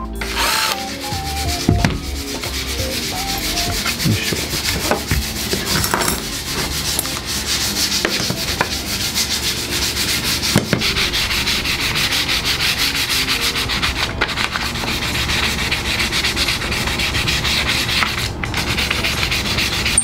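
Sandpaper rubbing a walnut chair-frame part by hand, in steady, rapid back-and-forth strokes.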